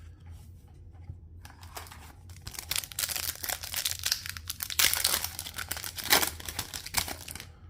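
A sealed hockey card pack being torn open, its wrapper crinkling and rustling in a run of tearing sounds that grows louder midway and stops shortly before the end.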